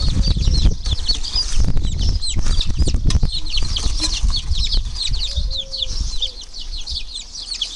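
Baby chicks peeping continuously, many rapid high cheeps, with low rumbling and a few knocks under them that ease off after about six seconds.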